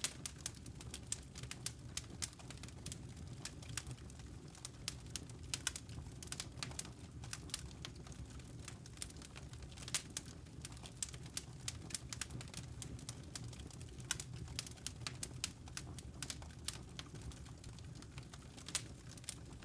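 Wood fire crackling: irregular sharp pops and snaps, several a second, over a steady low rumble of burning.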